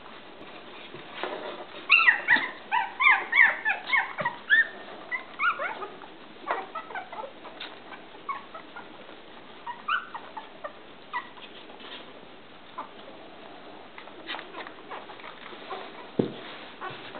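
Newborn puppies squeaking and whimpering as they jostle to nurse: a dense run of short high squeaks starting about two seconds in, thinning to scattered squeaks later. A few knocks near the end.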